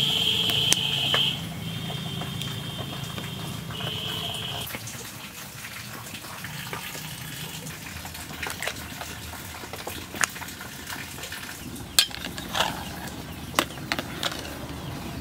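Pot of rice boiling hard over a wood fire, bubbling steadily, with a few sharp clicks in the last few seconds. A high steady tone sounds twice in the first five seconds, once for about a second and again briefly.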